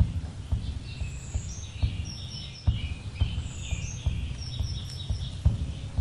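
Small birds chirping and twittering over an irregular run of dull low thumps.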